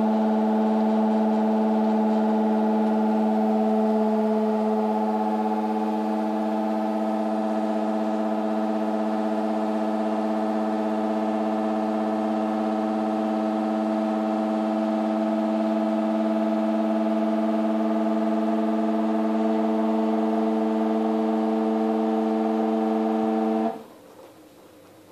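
LG F1403RD washer dryer making a really loud, steady humming drone, one held tone with overtones, which cuts off suddenly near the end. The cause is unknown to the owner.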